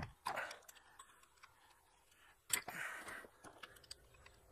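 Faint, scattered metallic clicks and ticks, with a couple of short scrapes, from a small wrench working the 10 mm connecting-rod cap bolts of a disassembled Honda engine.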